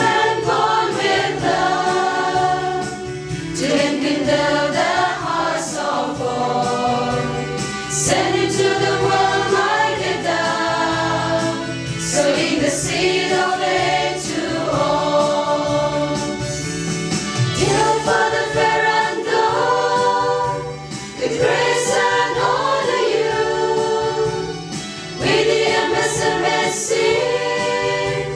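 Choir singing a slow Christian hymn in long held phrases over a steady low accompaniment.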